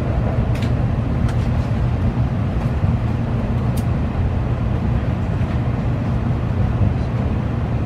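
Steady low rumble of an N700 series Shinkansen carriage running, heard from inside the passenger cabin, with a few faint clicks.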